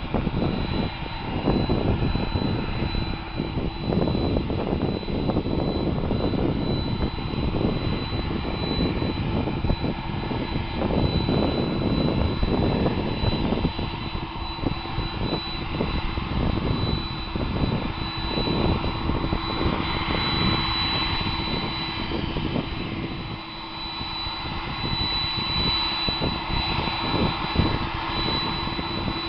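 Jet airliner engine running steadily, a continuous rough rumble with a steady high-pitched whine and a lower hum over it, which the uploader takes for a strange noise in the engine.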